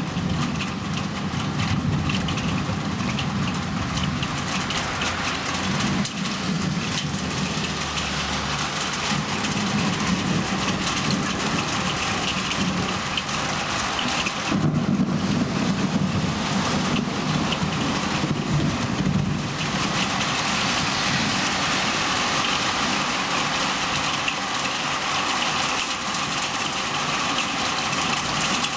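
Heavy rain falling steadily, with low rolls of thunder swelling and fading several times as a thunderstorm weakens.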